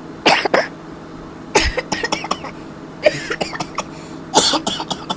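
A man coughing over and over in short fits of a few harsh coughs each, about a second or so apart.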